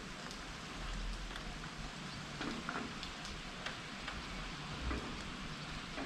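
Steady rain falling, with scattered drops striking close by as separate ticks. A low rumble swells about a second in and again around five seconds.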